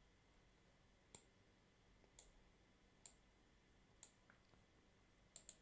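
Computer mouse clicking: four single clicks about a second apart, then a quick double click near the end, over faint hiss.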